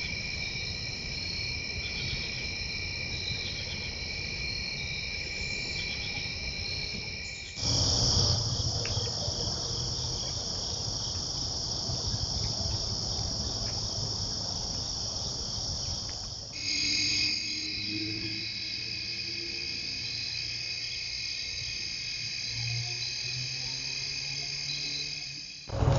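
Insects, crickets among them, chirring steadily in several high, unbroken tones over a low rumble. The chorus changes abruptly twice, about eight and sixteen seconds in.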